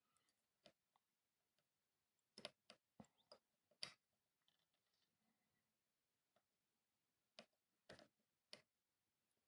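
Near silence broken by faint, sharp clicks and taps in two short clusters, from small tools and parts being handled while soldering a circuit board at the workbench.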